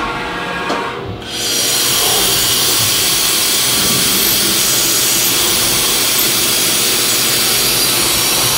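Haas VF-3 CNC mill drilling a hole in a metal soft-jaw block. About a second in, a loud, steady hiss sets in: the mist coolant sprayer blowing onto the cut.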